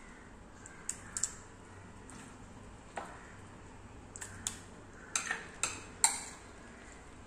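A spoon clinking and scraping against a ceramic bowl as soaked flattened rice (aval) is scooped into beaten egg batter: scattered sharp clinks, a quick cluster of them in the second half, the loudest about six seconds in.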